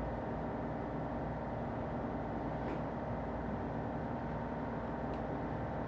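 Steady mechanical hum with several held tones and a noisy hiss, even in level throughout.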